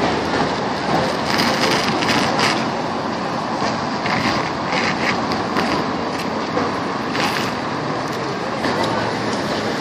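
Steady road traffic noise: a continuous hum of cars passing, with a few faint clicks.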